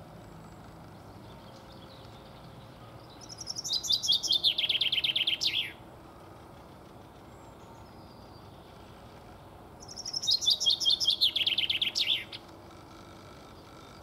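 Male common chaffinch singing twice, a few seconds apart: each song about two and a half seconds of quick repeated notes stepping down in pitch and ending in a short flourish.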